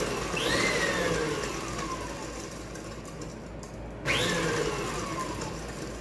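Electric stand mixer running as flour is added to the bowl. Its whine falls in pitch, then starts up abruptly again with the same falling whine about four seconds in.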